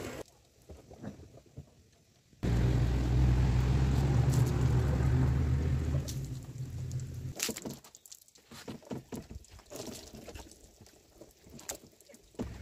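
Water being poured and splashed over a scooter during a hand wash, with irregular splashes and drips. From about two and a half seconds in until about six seconds there is a loud rushing noise with a deep rumble that starts suddenly.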